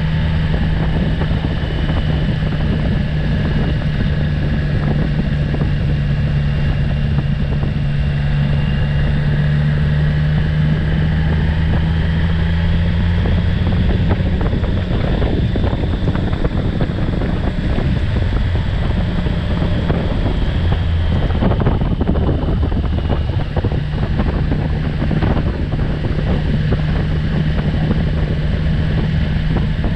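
Motorcycle engine running at a steady cruise, with wind rushing past the microphone. The engine note dips briefly about two-thirds of the way through, then steadies again.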